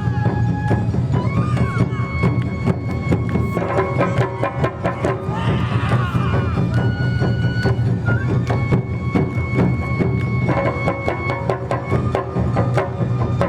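Traditional Japanese festival music: a high flute holds long notes over quick, sharp percussion strikes and deep drumming.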